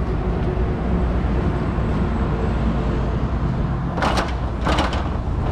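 Wind rumbling on the microphone, with two short bursts of hissing spray about four seconds in as a pressure-washer jet hits the rear of the trailer.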